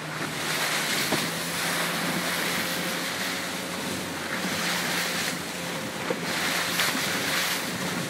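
Strong wind buffeting the microphone in surges over rushing, splashing sea water, with a faint steady motor hum underneath.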